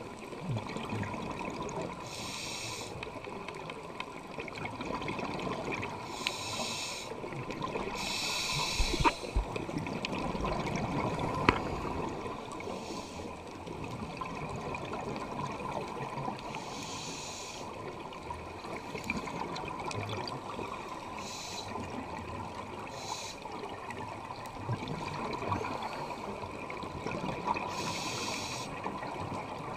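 Scuba regulator breathing heard underwater: a burst of exhaled bubbles every few seconds over a steady underwater hiss.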